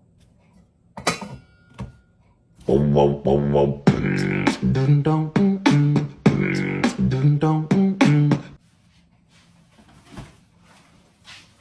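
A few seconds of rhythmic vocal music, beatbox-like, with short held notes stepping up and down, after a couple of faint clinks.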